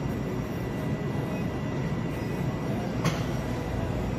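Steady low rumble of shop background noise with a faint steady high whine, and one sharp click about three seconds in.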